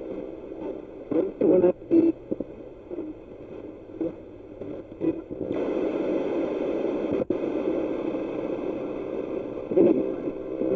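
Spirit box sweeping through radio frequencies: choppy bursts of radio static and clipped broadcast fragments, settling into a steadier hiss of static about halfway through before breaking up again.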